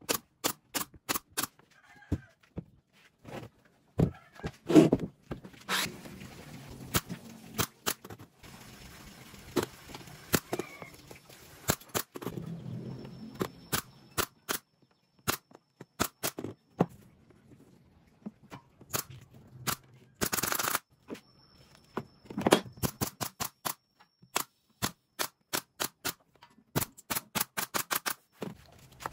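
Pneumatic brad nailer firing again and again, sharp shots in quick runs, driving nails into plywood joints. A brief burst of noise about two-thirds of the way through.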